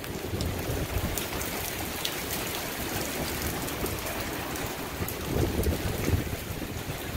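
Steady rain falling in a storm, with wind gusting. A deeper low rumble swells about five and a half seconds in.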